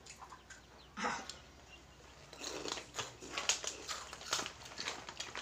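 Crunching and rustling as a spicy Oishi snack is eaten out of its plastic packet: one sharper sound about a second in, then a quick run of short crunches through the second half.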